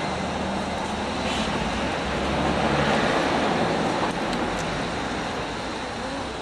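Street traffic: a motor vehicle passing close by, its engine and tyre noise swelling to loudest about halfway through, then fading.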